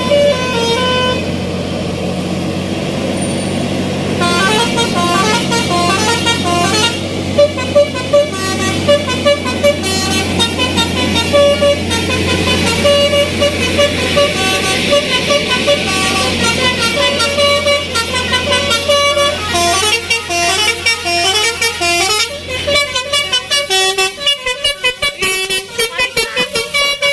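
Bus 'telolet' Basuri multi-tone horn playing quick melodies of short notes that step up and down in pitch, over a steady low drone that cuts out a few seconds before the end.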